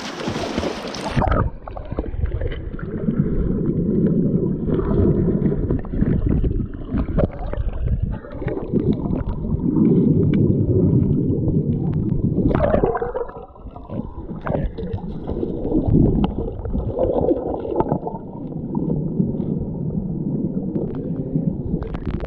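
Splashing for about the first second, then a camera microphone goes under water in a shallow stream: a muffled underwater rumble and gurgling, with knocks and bumps as hands stir the water.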